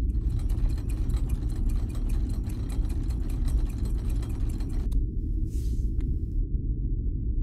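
A steady low rumbling drone, with a quick patter of small clicks over it for the first five seconds or so. Near the end come a short whoosh and a couple of sharp clicks.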